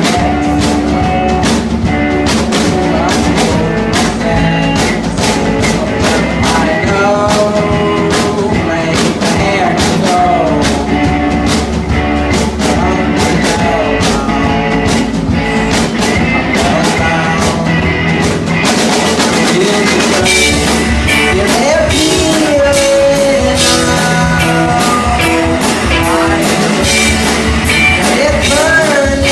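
Live rock band playing: drum kit keeping a steady beat under electric guitar and bass, with a lead line that bends in pitch. The cymbals get brighter and busier about two-thirds of the way through.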